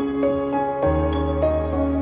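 Background music: an instrumental of sustained notes changing every fraction of a second, with a low bass note coming in about a second in.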